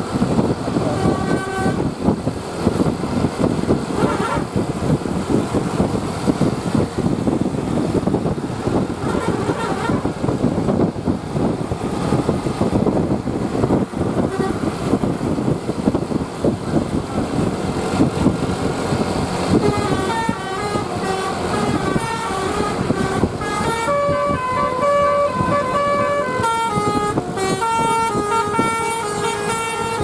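A bus's basuri (telolet) musical air horn. A brief toot comes about a second in, then the horn plays a multi-note tune in stepped pitches through the last third, over the steady noise of the bus and traffic.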